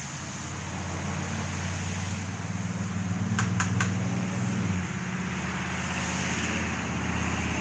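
A steady low motor hum with a slight shift in pitch about five seconds in, and three quick clicks about three and a half seconds in.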